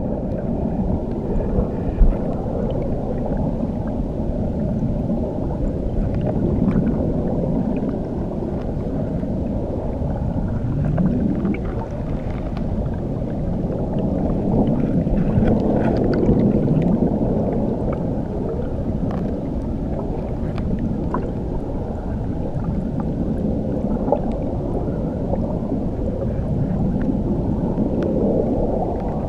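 Steady, muffled rush of churning water heard from under the surface beneath a waterfall: a dense low rumble with slow swells, faint bubbling ticks and almost nothing in the higher range.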